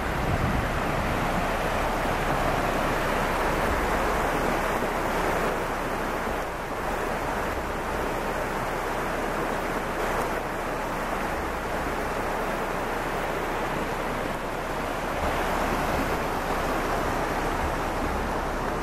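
Small mountain stream rushing and splashing over rocks and gravel, a steady noise of running water.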